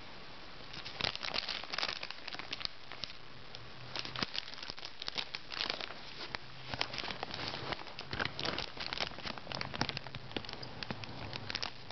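Clear cellophane wrap crinkling as it is handled and pulled back from a fruit bouquet, in irregular crackles that start about a second in.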